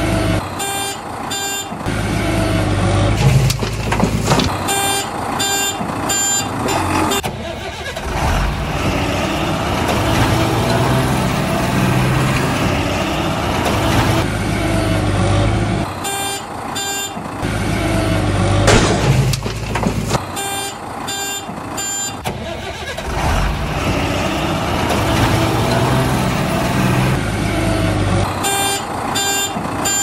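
Heavy construction-machine sound effect: a diesel engine running steadily, broken by several short runs of reversing beeps.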